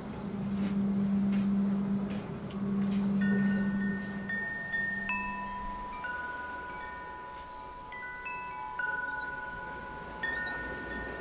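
Metal tube wind chimes ringing: single tubes struck about once a second at different pitches, each note ringing on long and overlapping the next. A low steady hum underneath dies away about halfway through.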